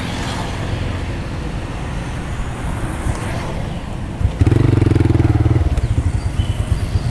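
Motorcycle engine idling in street traffic, a steady low rumble. About four and a half seconds in, a loud, low, steady tone sounds for about a second over it.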